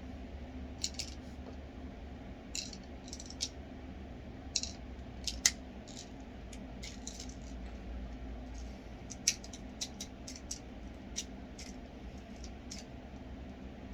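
Small sharp plastic clicks and rattles at irregular intervals, about twenty in all, as airsoft BBs are pushed from a speed loader into a sniper-rifle magazine.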